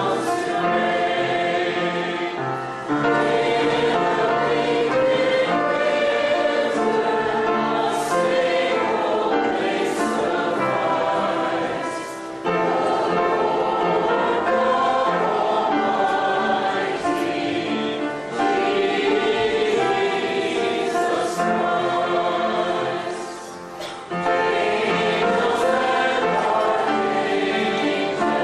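A choir singing a sacred song in long phrases, with short breaks between them.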